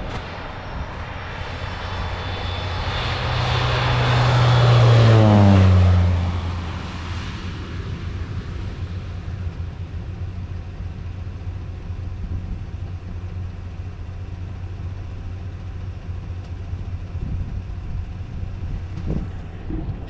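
Crop-dusting airplane making a low spraying pass. Its engine grows louder to a peak about five seconds in, drops in pitch as it goes by, then fades away over a steady low hum.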